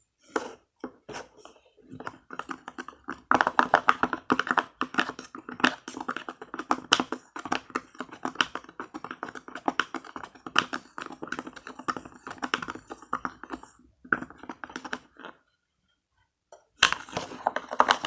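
A marker stirring a water, lotion and green dye mixture in a container: fast, irregular clicking and tapping against the container's sides, with a short pause near the end.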